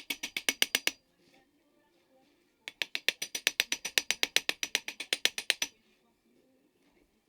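Rapid, even mechanical clicking, about eight clicks a second, in two runs: one stopping about a second in, the other lasting about three seconds from near the middle.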